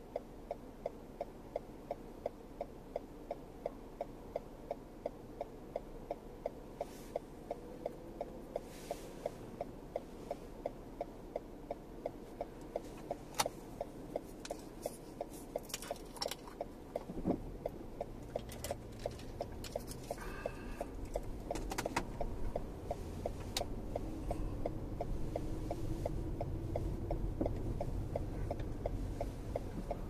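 Lexus RX 450h turn-signal indicator ticking steadily in the cabin, about two and a half ticks a second, while the car waits to turn. From about 17 s in, low road and tyre noise rises as the car pulls away and makes the turn.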